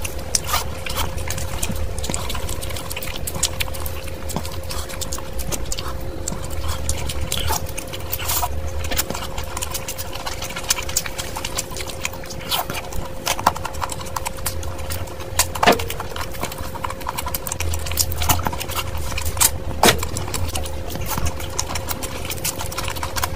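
Close-miked eating sounds: wet chewing and mouth smacking of chicken curry and fried rice, with the squelch of fingers mixing curry-soaked rice. Many short clicks and smacks come over a faint steady hum.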